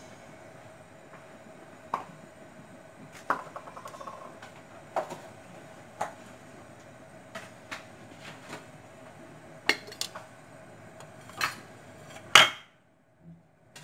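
Crockery and metal kitchenware clinking and knocking as dishes and bowls are handled, about a dozen separate knocks over a steady hum. The loudest knock comes near the end, and the sound cuts off suddenly right after it.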